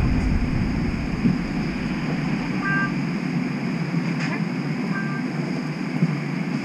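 Steady hum and hiss inside a stopped streetcar, with a short two-note electronic beep sounding about three seconds in and again about two seconds later.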